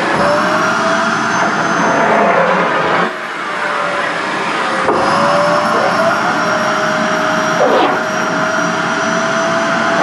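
SHARP EC-KP7F-A stick vacuum cleaner running with polyester skirt fabric sucked against its floor nozzle. Its steady rushing whine dips briefly in pitch about three and five seconds in.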